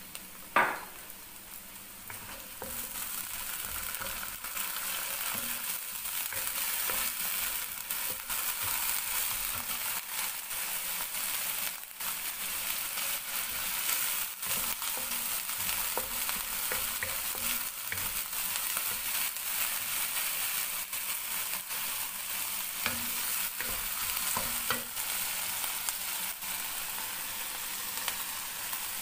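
Finely chopped onion with garlic and ginger paste sizzling in hot oil in a non-stick wok, stirred and scraped with a wooden spatula. A sharp knock comes about half a second in, and the sizzle grows louder about two to three seconds in.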